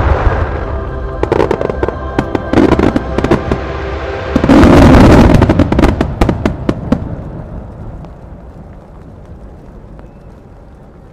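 Starmine fireworks display: aerial shells burst and crackle in rapid succession over accompanying music, building to a dense, loudest barrage about four to six seconds in. The bursts stop around seven seconds and the sound dies away.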